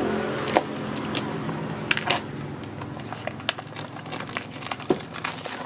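Clear plastic shrink-wrap on a smartphone box crinkling and crackling as it is slit with a blade and peeled off, in a run of sharp, irregular crackles.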